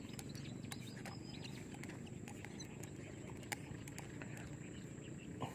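Quiet outdoor ambience by a fishpond: scattered short bird chirps and faint clicks over a low steady rumble, with a thin steady high tone throughout.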